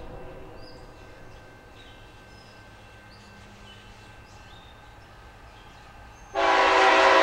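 Air horn of an approaching CSX diesel locomotive, a loud sustained blast starting suddenly about six seconds in. A fainter horn sound trails off at the start.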